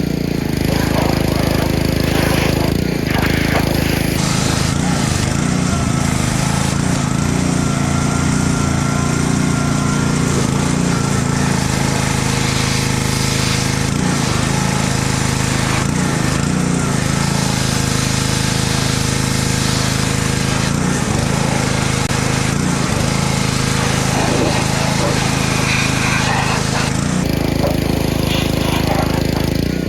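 Small gasoline engine running steadily at a constant speed. A hiss joins about four seconds in and stops near the end.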